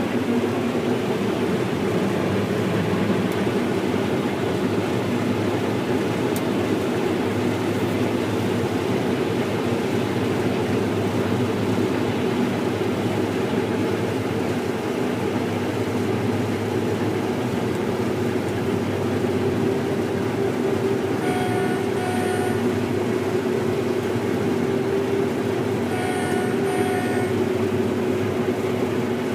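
Case IH 9230 Axial-Flow combine harvester running steadily under load while harvesting wheat, a deep continuous drone. Two short spells of high electronic beeping cut in about two-thirds of the way through.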